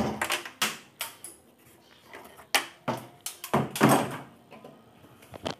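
Hard objects knocking and clattering as they are handled and set down on a wooden workbench: about a dozen sharp knocks, a loud one at the start and a longer clattering run a little before four seconds in.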